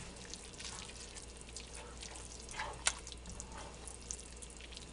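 Silicone spatula stirring a thick, wet roux and vegetable mixture in a cast iron Dutch oven: faint, irregular wet squelches and scrapes, with one sharper click just before three seconds in.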